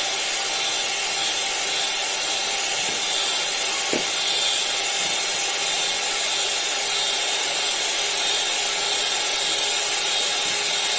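Electric hand mixer running steadily, its beaters whisking a runny egg mixture in a stainless steel bowl, with a brief knock about four seconds in.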